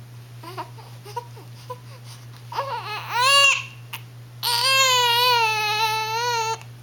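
A sleepy one-month-old baby crying: small fussing sounds, then a short cry that rises and falls about three seconds in, and a long, fairly steady wail from about four and a half seconds in that stops suddenly near the end.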